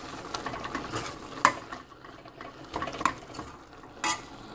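A metal spoon stirring chunks of beef and chopped tomato in a stainless steel pot, scraping, with a few sharp clinks of metal on metal against the pot.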